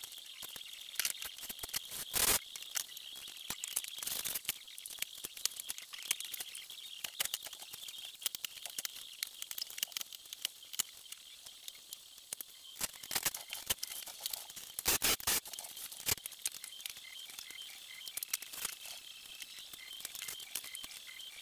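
Scattered light clicks and knocks of hand tools and metal parts being handled while fastening an ATV's track mount, with a few louder knocks about two, four and fifteen seconds in, over a faint steady high hiss.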